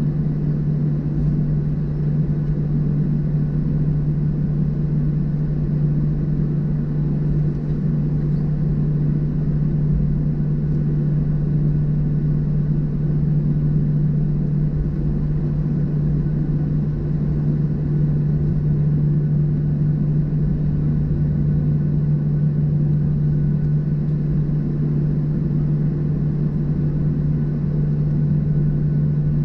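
Cabin noise of a Boeing 737-700 taxiing, with its CFM56-7B engines at idle: a steady drone with a strong low hum and a rumble underneath.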